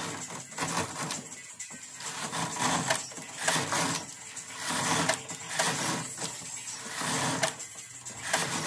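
Carriage of a Silver Reed SK840 knitting machine with SRP60N ribber pushed back and forth across the needle beds, knitting row after row, a rush of mechanical noise with each pass, about one a second.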